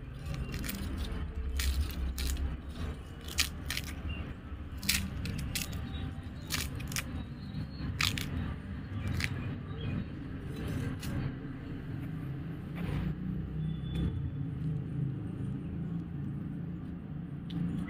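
Hands unwinding jute twine from a string-wrapped firecracker and picking at its casing: irregular small clicks, crackles and scrapes as the twine pulls free and the shell crumbles.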